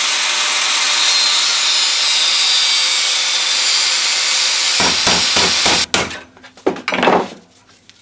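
Angle grinder cutting into the weld seam on a microwave oven transformer's steel laminations, a loud steady grinding for about six seconds that then stops, followed by a few knocks from handling the transformer in the vice.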